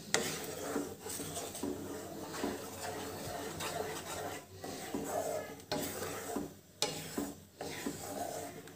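Wooden spatula stirring a thin tomato-cream gravy in a non-stick pan, scraping across the pan's bottom in uneven strokes, with a couple of short breaks about two-thirds of the way through.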